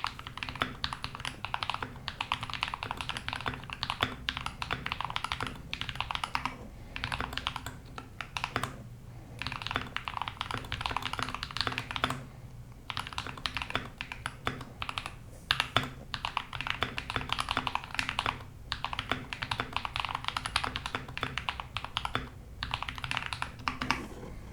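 Typing on a modified Royal Kludge RK68 mechanical keyboard with lightly lubed AKKO Ocean Blue and Drop Halo True tactile switches under thick PBT keycaps. It is a rapid, steady patter of key clacks in runs of a few seconds, with short pauses between the runs.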